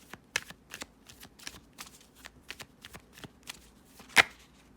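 Tarot deck being shuffled by hand: a quick run of card snaps and riffles, about four a second, with one louder snap near the end.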